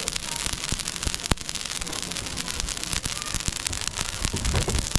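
Fish fillets grilling in wire baskets over hot charcoal: a steady sizzle with many sharp crackles and pops from the coals. A brief low rumble comes near the end.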